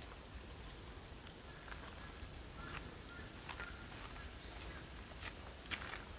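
Outdoor garden ambience: a steady low rumble, a few faint short bird chirps, and scattered light clicks.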